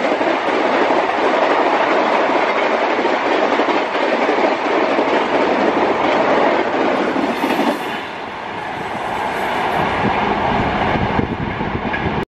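Rajdhani Express passenger coaches rushing past at high speed: a steady loud roar of wheels on rail with the clickety-clack of rail joints. About eight seconds in the sound drops and changes to a lower rumble that grows louder near the end.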